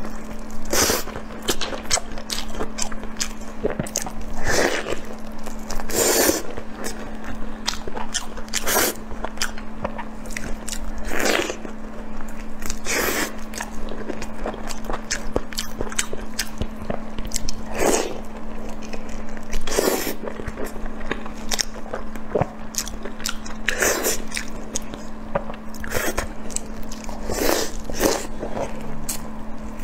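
Close-miked eating sounds: wet chewing, smacking and biting into soft braised meat, with a sharp mouth-noise stroke every second or two. A steady low hum runs underneath.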